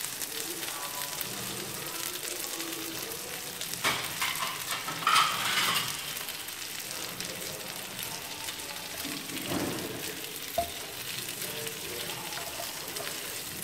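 Duck wing pieces sizzling in a fish-sauce and garlic glaze in a nonstick frying pan, a steady fine crackle from the pan's remaining heat with the hob just switched off. A few louder brief handling noises come about four and five seconds in, and a short click near ten seconds; near the end the pieces are stirred with a wooden utensil.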